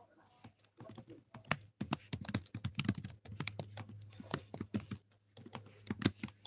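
Typing on a computer keyboard: irregular key clicks, several a second, over a low steady hum.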